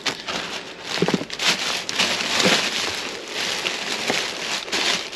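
Plastic bags and plastic-wrapped packages rustling and crinkling irregularly as gloved hands rummage through them.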